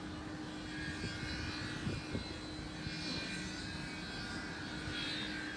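A steady outdoor drone with a constant low hum under it and a soft whoosh that swells and fades a few times.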